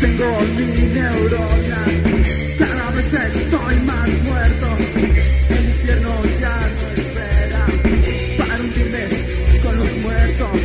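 Punk rock recording playing at full tilt: a pounding drum kit with distorted electric guitars and bass, and a lead line that bends and wavers in pitch.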